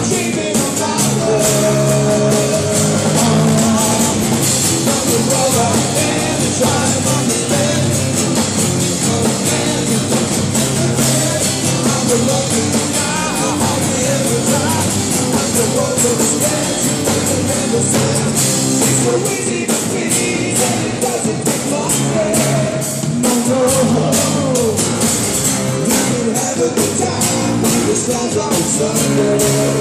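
Live rock music: a man singing over electric bass guitar and a drum kit, with a steady drum beat.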